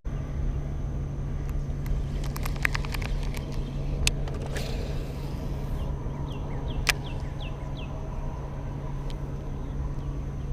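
Steady low rumble like an engine running, with a quick run of clicks a few seconds in, a short hiss around the middle, and short descending bird chirps later on.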